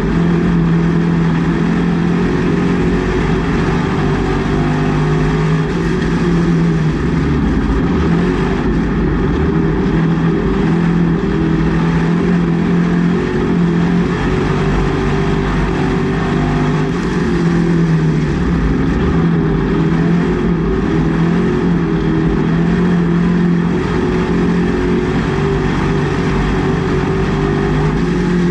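Race car engine heard from inside the cockpit, running steadily with its pitch wavering a little.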